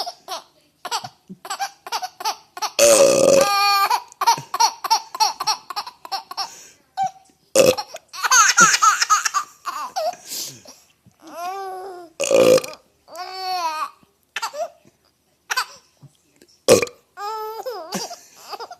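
A person burping loudly several times, with bursts of laughter between the burps. The longest, loudest burp comes about three seconds in.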